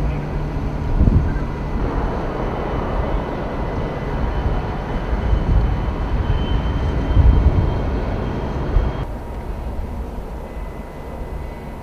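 Steady drone of a ship's cargo crane running as it lifts a heavy load, with a faint steady whine and low gusts of wind on the microphone. The sound drops and thins about nine seconds in.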